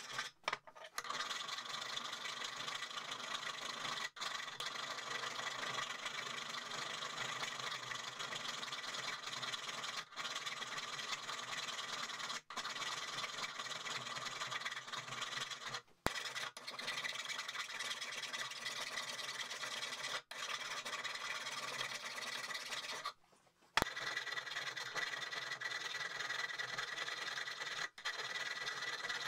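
Hand files rasping steadily over the steel head of an old hammer, broken several times by brief pauses.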